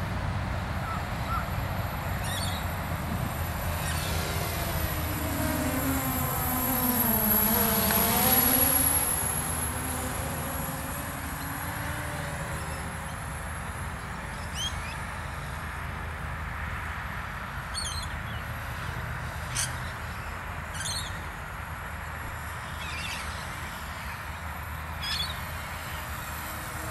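Radio-controlled model plane flying over, the drone of its motor and propeller growing louder and dropping in pitch as it passes close about eight seconds in, then easing back to a steady distant drone.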